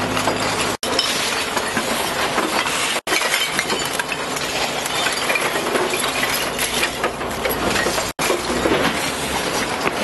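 Glass beer bottles clinking and clattering continuously as heaps of spilled bottles are picked up and stacked into plastic crates. A diesel engine hums low underneath at the start and again near the end, and the sound drops out for an instant three times.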